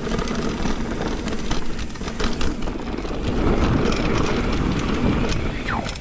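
Mountain bike riding down dirt singletrack, heard from a camera on the rider or bike: a constant rushing, rumbling noise with many short rattling clicks from the bike over the rough trail.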